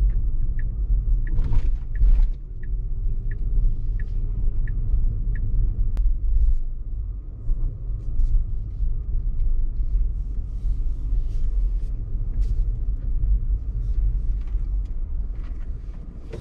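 Tesla Model S on the move with no engine note, just a steady low road and tyre rumble. The turn-signal indicator ticks about one and a half times a second for the first five seconds, then stops.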